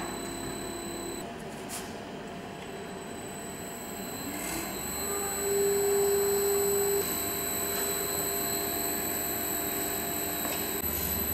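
Electric drive motors of a VMI Trilab vacuum mixer homogenizer running with a steady whine. About four seconds in, a motor tone rises in pitch as it spins up, then holds steady. Near the end a lower hum joins in.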